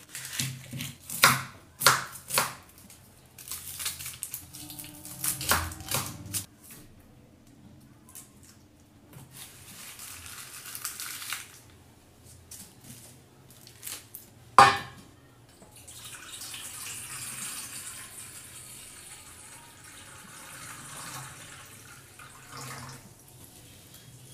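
Kitchen knife tapping and scraping on a wooden chopping board, with dry onion skins crackling as onions are peeled. A single sharp knock comes a little past the middle, and then a steady hiss of running water as hands work in a steel bowl.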